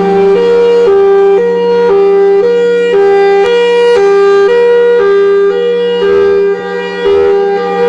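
Federal Signal Thunderbolt outdoor warning siren sounding two alternating pitches, switching about twice a second, over a steady lower tone. Its rotator is broken, so the head does not turn and the loudness holds steady instead of rising and falling.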